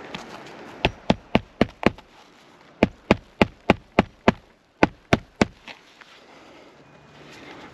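Hammer driving a roofing nail through a lifted asphalt shingle into the roof deck during a repairability test: three runs of quick strikes, five, then six, then three, about three a second.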